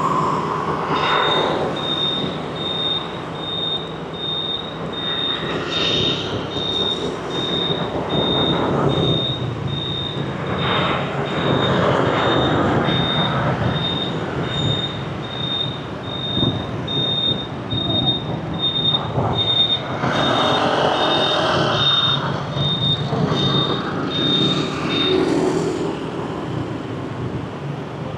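City street traffic passing, swelling several times as vehicles go by. A high electronic beep repeats about twice a second until near the end.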